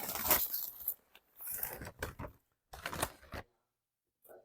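Takeout food packaging being handled and opened: three short bursts of rustling and crinkling, then silence.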